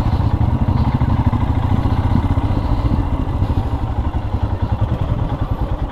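Motorcycle engine running under way, heard from the bike being ridden, with a fast, even exhaust beat.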